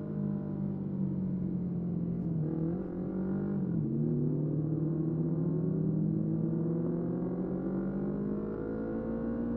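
Motorcycle engine running, its pitch dipping and recovering twice about three seconds in, then climbing steadily as it accelerates.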